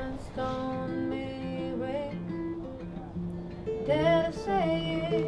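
Acoustic guitar being played, with sustained notes ringing.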